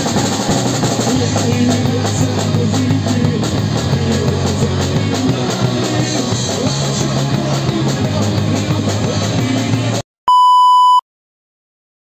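Rock band playing live on drum kit and guitars, with a steady drum beat. About ten seconds in the music cuts off, followed by a short, loud electronic beep.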